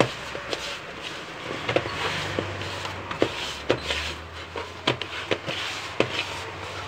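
A hand mixing flour into a stiff bread dough in a plastic bowl: a steady dry rubbing and scraping, with irregular small knocks of the hand against the bowl.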